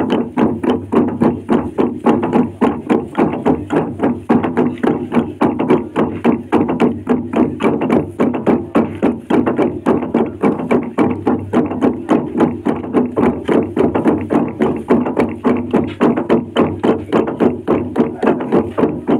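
A huge traditional log drum, a hollowed tree trunk, beaten by a long row of men with hand-held wooden batons: a steady, unbroken rhythm of wooden strokes, about four a second.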